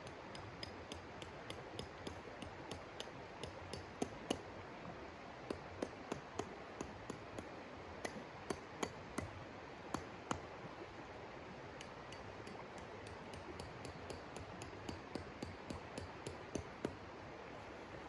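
Stones clicking and knocking together as they are handled at a creek's edge: irregular sharp clinks, often two or three a second, with a lull partway through, over the steady rush of the stream.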